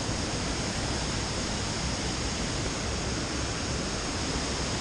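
Steady rush of a shallow river flowing over stones, an even hiss without a break.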